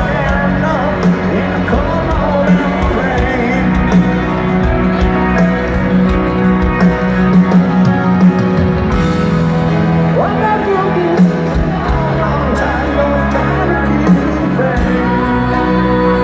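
Rock band playing a slow ballad live in an arena, recorded from the audience: a sung lead vocal over held chords, with drum hits.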